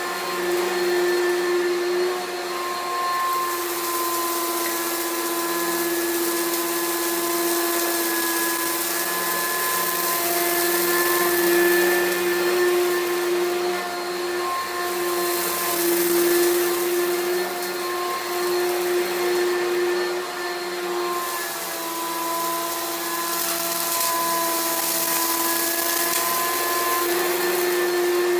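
Oreck XL Pro Plus upright vacuum cleaner running steadily over carpet strewn with sand and debris: a constant motor whine under a rushing hiss that swells and fades several times as it is pushed along.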